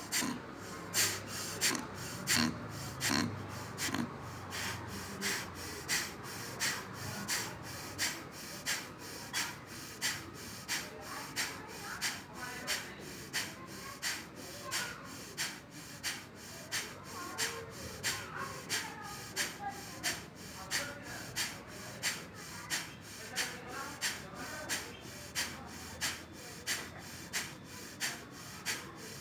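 A man doing bhastrika pranayama (bellows breath): forceful breaths pumped in and out through both nostrils, sharp nasal huffs at a steady, even rhythm of about three every two seconds.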